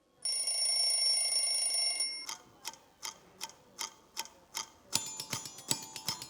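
An alarm clock rings steadily for about two seconds and stops, then a clock ticks evenly, about two or three ticks a second. Near the end, music with mallet percussion comes in over the ticking.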